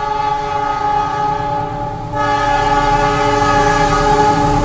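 Horn of an oncoming diesel locomotive, a chord of several steady tones sounded in two blasts with a brief break about two seconds in, the second blast louder. Under it runs the low rumble of the carriage's own running on the track.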